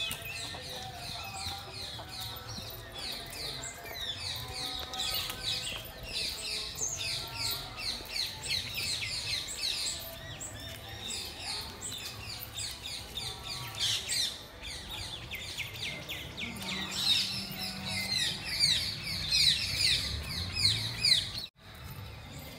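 Many small birds chirping at once, a dense chorus of short quick downward-sweeping chirps that keeps going and grows busier in the last few seconds.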